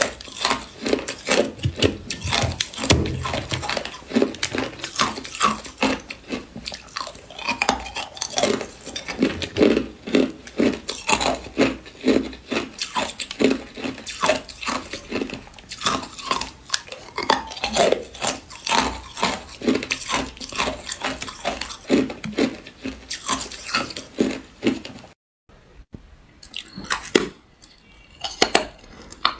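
Ice crunched and cracked between the teeth: a dense run of sharp, crackling crunches. About 25 s in the sound drops out for a moment, then comes back as sparser cracks and snaps of a thin sheet of ice being bitten.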